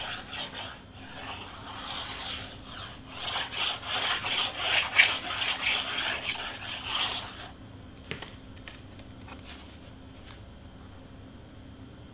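Cardstock being rubbed in quick back-and-forth strokes, pressing glued paper layers flat. The rubbing grows louder in the middle and stops about seven and a half seconds in, followed by a few faint ticks.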